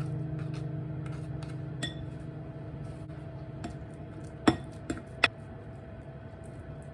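Light clinks of tableware, dishes or utensils knocking together: one about two seconds in, then three in quick succession past the middle. A held chord of background music fades away beneath them.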